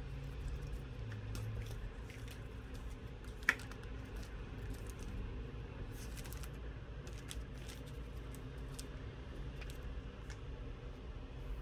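Paper and cardboard packaging being handled: a folded instruction leaflet and box making faint scattered clicks and rustles, with one sharp tick about three and a half seconds in, over a steady low hum.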